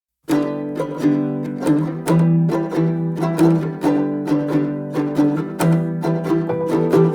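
Instrumental background music led by plucked strings, starting again after a brief silence at the very start, with a steady stream of picked notes.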